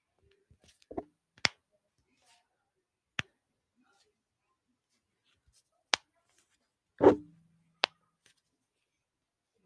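Knuckles and finger joints cracked close to a microphone: a handful of single sharp pops a second or two apart, with the loudest and fullest one about seven seconds in.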